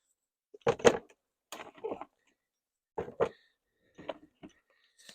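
Several short knocks and scrapes from beehive equipment being handled, coming in four brief clusters about a second apart.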